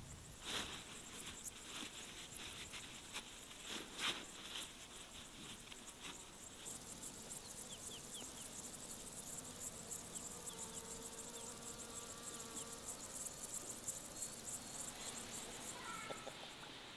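Meadow insects chirring in a fast, high, steady buzz that sets in about seven seconds in, after a few rustles and knocks in the grass early on. A few short clucks from a hen come near the end.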